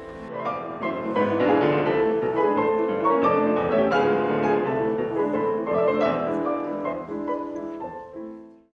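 Grand piano played four hands by two pianists: a dense stream of many notes across the range. It fades out near the end.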